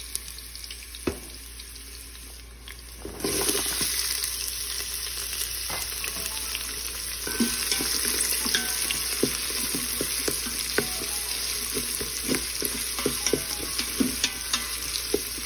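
Hot ghee with cumin and mustard seeds, green chili and ginger sizzling quietly in the steel inner pot of an Instant Pot on sauté, then chopped onion going in about three seconds in and frying with a much louder, steady sizzle. From about seven seconds on, a wooden spoon stirring the onion taps and scrapes against the pot.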